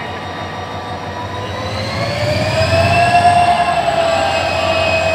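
Bangladesh Railway diesel locomotive working as it pulls a commuter train along the platform. Its engine and turbocharger whine rise in pitch and get louder about two seconds in, then hold a steady high whine over a low rumble.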